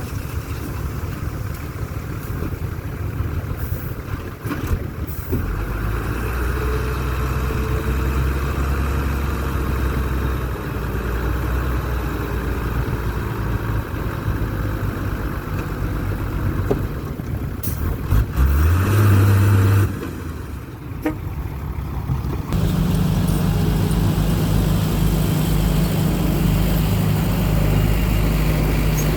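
Heavy earthmoving machinery engine running under load, revving up briefly a little past halfway. About three-quarters through, the sound cuts abruptly to a different engine running steadily.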